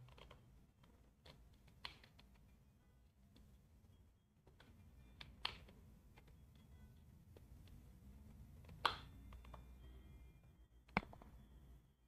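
Near-silent room tone with a faint low hum, broken by a handful of sharp clicks and taps. The loudest come about two, five and a half, nine and eleven seconds in.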